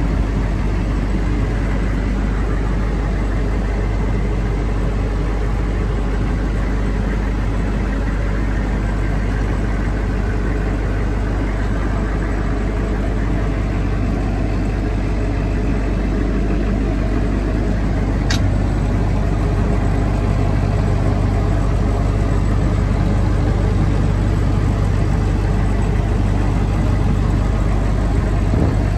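Humvee M1167's diesel V8 idling steadily, heard from inside the vehicle's cabin as a constant low hum. One faint sharp click about two-thirds of the way through.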